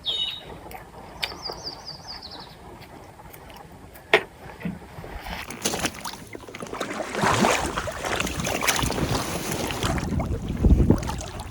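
Water splashing and sloshing around a small fishing craft on a lake, growing stronger in the second half. There is a short high chirping trill near the start and a single knock about four seconds in.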